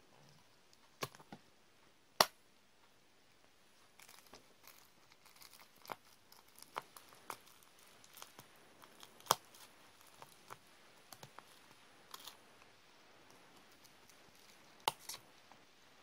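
Sharp pops and plastic crinkling come at irregular intervals as green-filled bubble wrap, used as mock pimples, is pressed and popped with a metal tool and a plastic syringe tip. The loudest pops come about two and nine seconds in, with a quick pair near the end.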